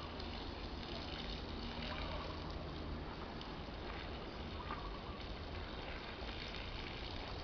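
Steady outdoor background hiss with a low hum. A faint short call recurs about every two seconds or so.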